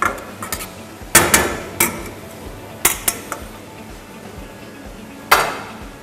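Pans, plates and utensils clattering as they are handled: a series of sharp clanks and clinks, loudest a little over a second in and again near the end.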